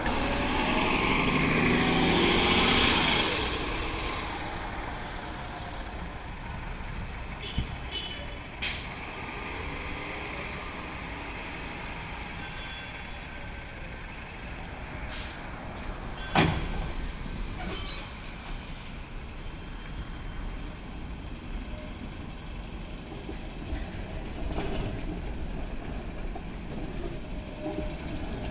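A bus passes close by in the first few seconds. Then a Bombardier Flexity Outlook low-floor streetcar rolls slowly through the loop tracks with a steady rumble, a few sharp knocks from the wheels over the rails (the loudest about sixteen seconds in), and faint high wheel squeal.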